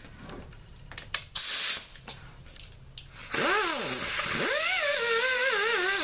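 A short burst of air hiss from a pneumatic angle grinder about a second and a half in. A little after three seconds in, electric guitar rock music with bent notes starts over a steady hiss.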